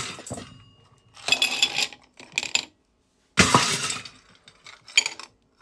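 Ice cubes dropped into cocktail glasses, clinking against the glass in four short bursts.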